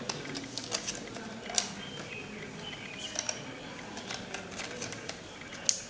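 Light plastic clicks and handling noise from a trail camera's casing being turned over in the hands, with a sharper click about a second and a half in and another near the end.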